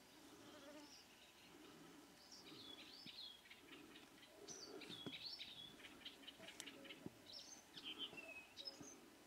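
Faint songbird singing: a run of quick, warbled notes that rise and fall, starting about two seconds in.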